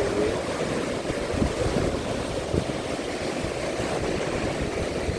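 Strong gusty wind buffeting the microphone over the rush of a rough, storm-driven sea breaking in waves.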